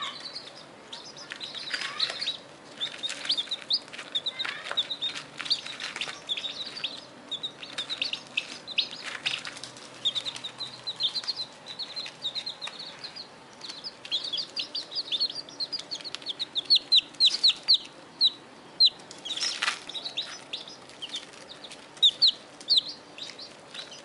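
Young chicks peeping: a steady stream of short, high-pitched peeps, several birds at once, with a few brief scratchy rustles.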